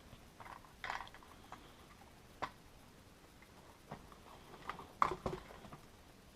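Light, scattered clicks and taps of parts being handled and fitted on a Kyosho Blizzard RC snowcat, with a small cluster of them about five seconds in.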